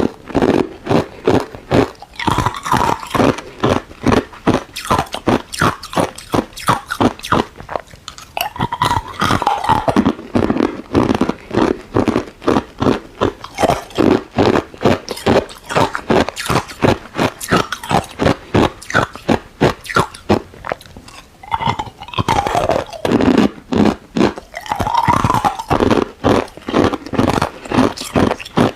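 Ice being chewed close to the microphone: a steady run of sharp, crackling crunches, about two to three a second.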